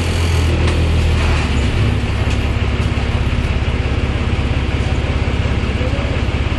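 Bus engine running, heard from inside the cabin as a steady low drone; about a second and a half in it takes on a fast, even pulsing.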